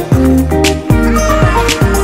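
Background music with a steady beat: deep kick drums that drop in pitch, a sharp snare-like hit about once a second, and sustained chords over them.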